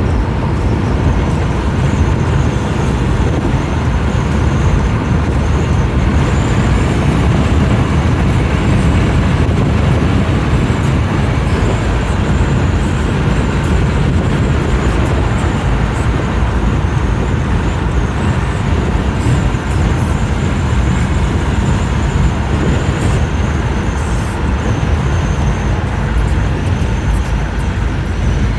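Steady road and engine noise of a car driving along, a constant low rumble with no distinct events.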